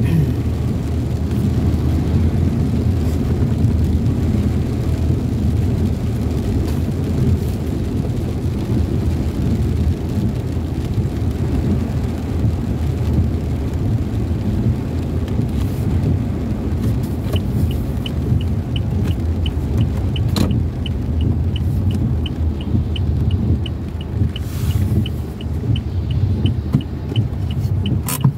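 Steady low rumble of a moving vehicle's engine and tyres, heard from inside the cabin. About two-thirds of the way in, a light regular ticking starts, about three ticks a second, and continues alongside it.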